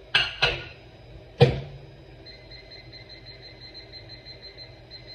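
Three sharp knocks of a plastic food container being handled on a kitchen counter, the third the loudest. After them comes a faint, high chirping, about four times a second.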